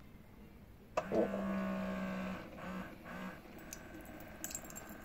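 Single-serve coffee machine's water pump starting to brew: a sudden buzzing hum about a second in that holds for over a second, then comes in two short pulses.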